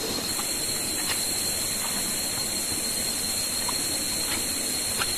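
Steady rushing noise, with a few faint, short high chirps scattered through it.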